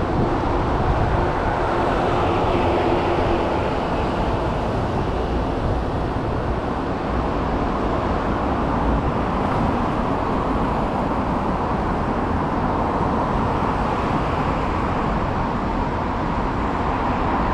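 Steady traffic noise from a multi-lane city road: an even rush of passing cars with no single event standing out.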